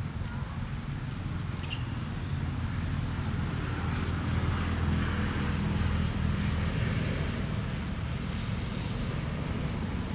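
Low, steady rumble of a motor vehicle's engine, growing louder in the middle and easing off again.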